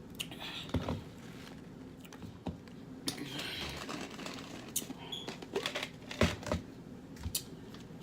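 Close-up eating of a saucy seafood boil: irregular clicks, taps and wet smacks as food is handled, pulled apart and chewed.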